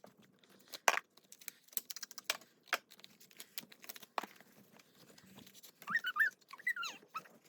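Packaging being opened by hand: scattered crinkles, clicks and tearing of wrapping. About six seconds in come a few faint, high, wavering squeaks.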